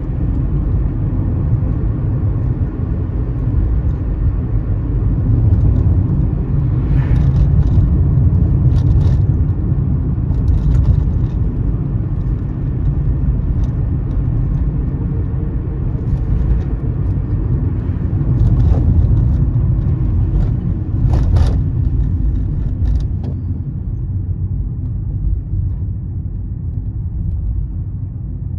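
Car driving at low speed, heard from inside the cabin: a steady low rumble of engine and tyres on the road, with a few short knocks scattered through it.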